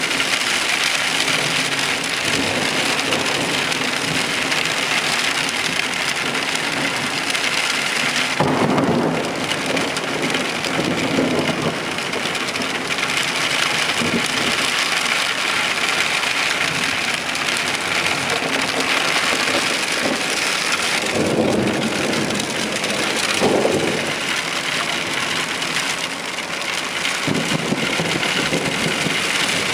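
Rain falling steadily in a storm, an even hiss throughout, with a few low rumbles that swell and fade now and then.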